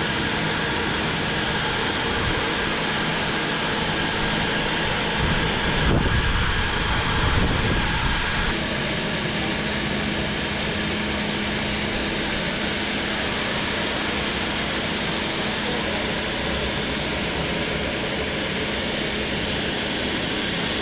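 Fire pump running under load during a flow test, a steady mechanical hum over a loud, even rush of water discharging from the test outlets. A louder low rumble swells for a few seconds about five seconds in.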